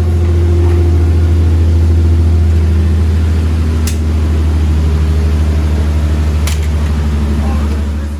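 2008 Nissan 350Z's V6 engine idling steadily, a constant low hum, with two sharp clicks about four and six and a half seconds in.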